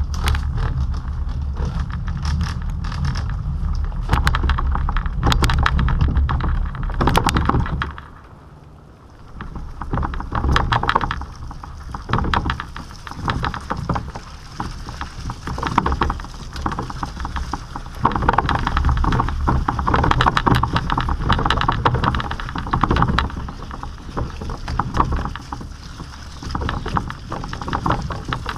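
Solid plastic wheels of a homemade PVC kayak cart rolling, with the cart frame and kayak hull rattling and knocking as it bumps along. A heavy rumble over the first eight seconds turns, after a brief lull, into a rougher, uneven clatter.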